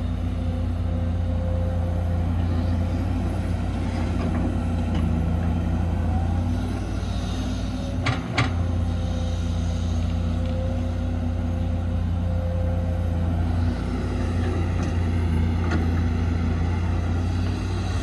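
Heavy construction machine's diesel engine running steadily with a low drone, with two sharp metallic knocks about eight seconds in.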